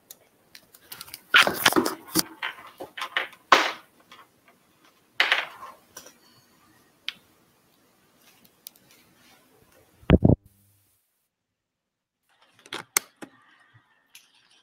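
Headset being handled and adjusted on the wearer's head, picked up by its own microphone: irregular rustling, scraping and clicks, with a loud low thump about ten seconds in and a few sharp clicks near the end.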